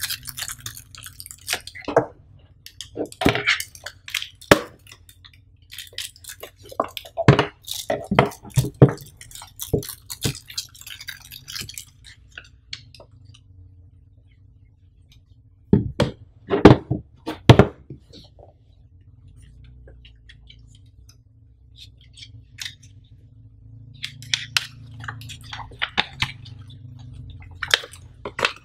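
Close-miked unboxing handling of cardboard, plastic wrap and paper: irregular clicks, taps and crinkles as things are lifted from the box, a cluster of sharp knocks a little past the middle, and paper rustling near the end as a folded user manual is opened. A faint steady low hum lies beneath.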